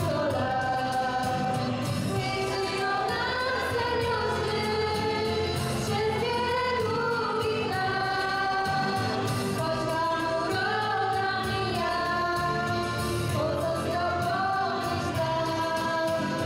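Two young women singing a song together into handheld microphones, with sustained melodic phrases over steady instrumental accompaniment.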